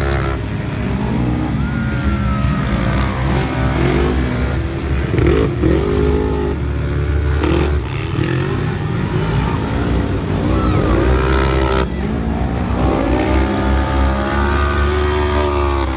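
Several side-by-side UTVs racing on a dirt track, their engines overlapping and revving up and down in pitch as they go through the turns.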